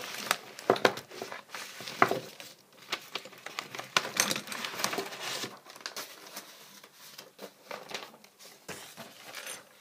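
Sheets of printed paper rustling as they are handled and flipped through, with many sharp clicks and knocks; busiest and loudest in the first half, fainter after that.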